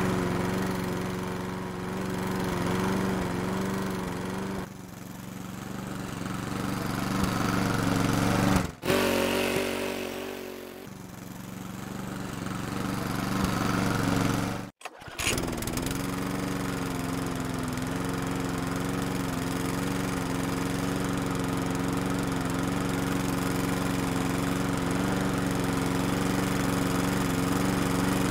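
Small lawn mower engine running steadily, broken by two sudden brief drop-outs about a third and halfway through, after which it picks up and runs evenly again.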